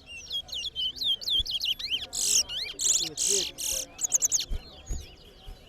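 Twa-twa (large-billed seed finch) songbirds singing fast runs of whistled, warbling notes, the song loudest and densest from about two to four and a half seconds in.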